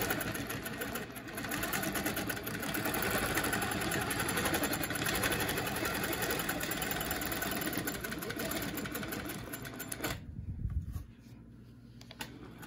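Quilting machine stitching at a fast, steady rate as it is guided along an acrylic quilting ruler, stopping abruptly about ten seconds in; a few faint clicks follow.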